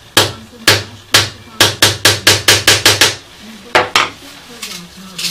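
A small hammer taps a 2 mm brass fretwork motif laid on a wooden board, giving about fourteen sharp strikes. The taps come about half a second apart at first, quicken to roughly five a second, then stop for a moment before two more.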